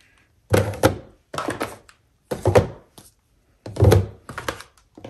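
Eyeshadow palettes being set down and knocked against one another in a drawer organizer: four short clusters of clacks and thunks about a second apart.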